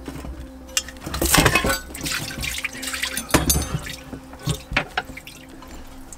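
Water spilling and dripping out of a Sea-Doo exhaust cone as it is pulled apart, with sharp metal clicks; the cone is full of water.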